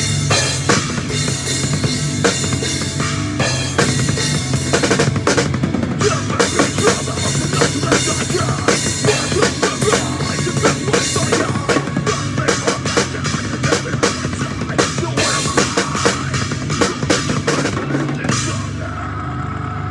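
A drum kit played fast at a sound check, with dense kick, snare and cymbal strikes. The playing stops near the end, leaving a low steady hum.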